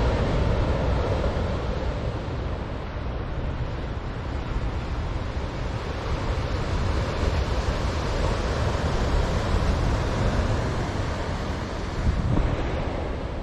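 Ocean surf breaking and washing ashore, mixed with wind buffeting the microphone: a steady rushing noise with a heavy low rumble.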